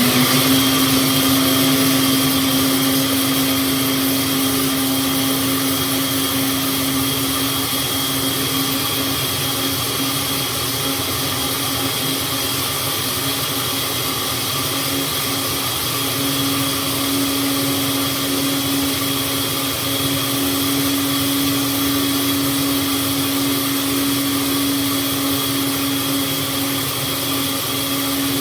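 Electric kitchen blender motor running continuously at full speed, a steady hum and whine over a grinding hiss with no pauses.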